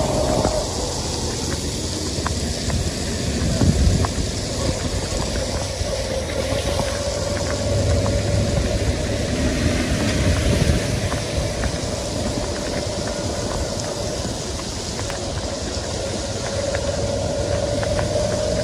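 Riding in a motor rickshaw on a wet road: its small engine running steadily under a low rumble and the hiss of tyres on wet asphalt. A steady whine fades in the middle and comes back near the end.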